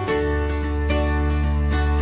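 Background music: a plucked-string instrument playing a run of short notes over a held bass note.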